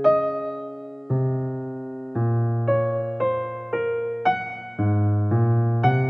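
Slow, gentle piano music: soft chords and melody notes struck about once every half second to a second, each ringing and fading before the next.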